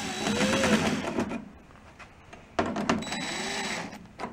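A small power tool motor runs in two short spells. Each time its pitch rises and falls as it speeds up and slows, and a click comes near the end.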